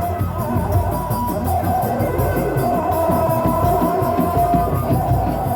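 Live music with dense, rapid drumming from dogdog drums and a wavering, sustained melody line over it.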